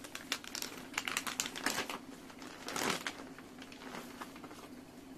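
Clear plastic packaging being handled: crinkling and rustling with many quick clicks. It is busiest in the first two seconds, with one louder crinkle about three seconds in.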